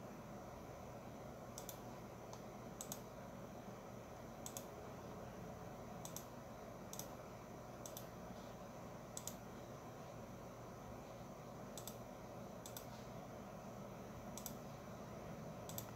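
About ten sharp, unevenly spaced computer mouse clicks, each a quick press-and-release double, over a faint steady hum of room and computer noise.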